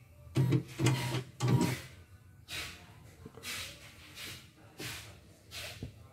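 CNY computerised embroidery machine running its motors in three short bursts in the first two seconds, then a string of softer brief mechanical noises about every second.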